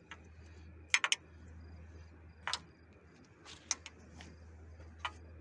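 A handful of sharp clicks and taps, two loud ones close together about a second in and a few more spread through, over a steady low hum. Faint, regular insect chirping runs underneath.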